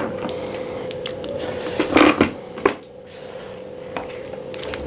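Fingers mixing basmati rice and shahi paneer curry on a steel plate, with soft handling sounds, a louder cluster of sounds about two seconds in and a sharp click just after. A faint steady hum runs underneath.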